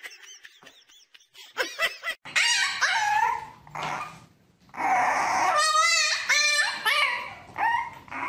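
French bulldog puppy whining, a run of high, wavering cries that starts about two seconds in.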